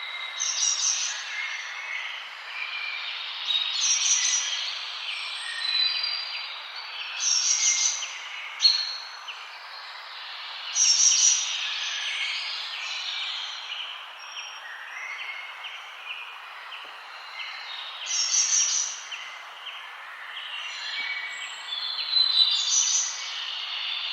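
Several songbirds chirping and singing over a steady hiss of forest background, with louder bursts of high song every few seconds.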